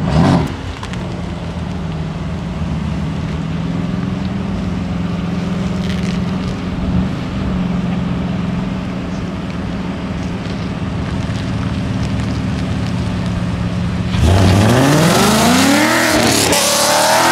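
Ford Mustang V8 running at low revs, then a full-throttle pull about fourteen seconds in: the revs climb sharply, drop at a gear change, and climb again.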